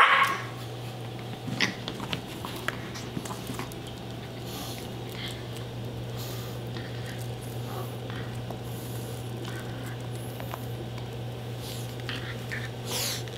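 A Yorkshire terrier's bark, cut off at the very start, then faint pattering, scuffling and soft clicks as the dog mouths and pushes a ball toy about on a rug, over a steady low hum.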